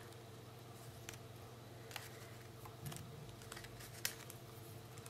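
Faint rustling and light clicks of cardstock die-cut pieces being handled and shuffled between fingers, a handful of separate small taps with the sharpest about four seconds in, over a low steady hum.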